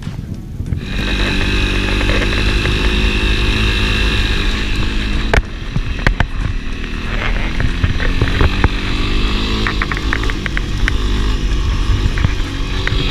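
Honda CRF250 Rally's single-cylinder engine running as the bike is ridden off-road, coming up loud about a second in and holding a fairly steady pitch. Several sharp knocks are scattered through the middle of the sound.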